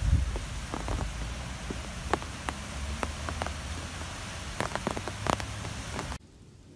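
Heavy rain falling, with many sharp individual drop strikes over a steady low rumble. It cuts off abruptly about six seconds in, leaving only a faint hiss.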